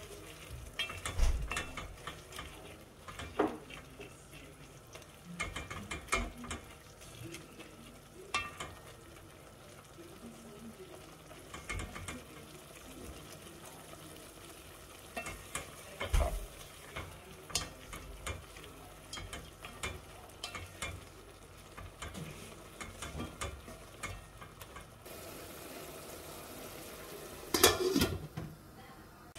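Wooden spatula stirring and tapping in a pan of omena frying in tomato sauce: a soft sizzle under irregular scrapes and knocks. Near the end a steel lid clatters down onto the pan.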